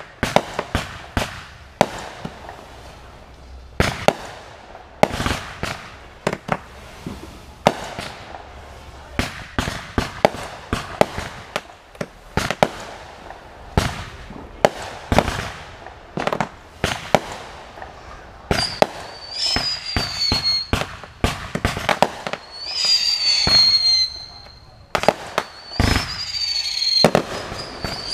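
Fireworks display: aerial shells bursting in a rapid, irregular series of sharp bangs and crackles. In the second half, several whistling fireworks add high whistles that fall slightly in pitch.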